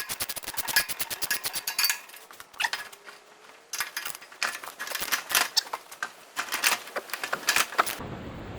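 Ratchet wrench clicking rapidly on a bolt of the tiller's bearing plate, with metal tools clinking. It stops about two seconds in, then resumes in shorter, irregular runs of clicks.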